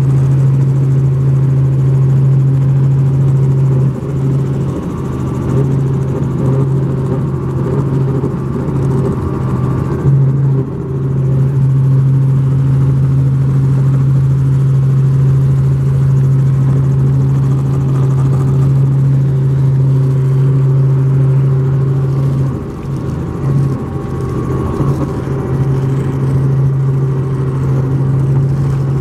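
Helicopter in flight heard from inside the cabin: a loud, steady drone of engine and rotor with a strong low hum, dipping briefly a few times.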